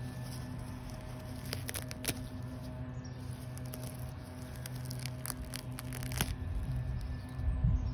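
Fingers pulling hairy bittercress weeds out of lawn grass: brief crackling and tearing as stems and roots come free, in two bursts about a second and a half in and again around five to six seconds in. A steady low hum runs underneath.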